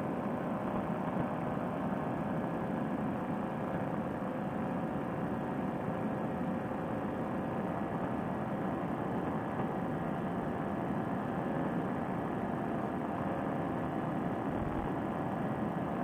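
Fresh Breeze Monster paramotor engine and propeller running at a steady cruise throttle, a constant drone with no change in pitch.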